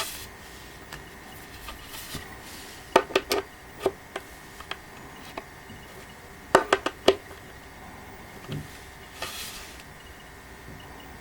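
Small metal clicks and taps of screws, fittings and a screwdriver being handled while a wooden-panel printer stand with steel supports is assembled: a quick cluster of clicks about three seconds in and another about six and a half seconds in, then a soft thump.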